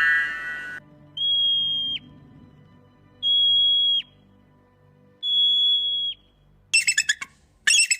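Bird calls: three separate steady, high, pure whistles, each about a second long and dropping sharply in pitch at its end, then near the end a fast, harsh run of pulsed calls.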